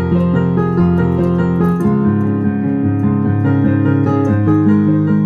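Piano playing a melodic sequence passage, the same figure repeated at different pitches, over held bass notes that change about two seconds in and again near the end.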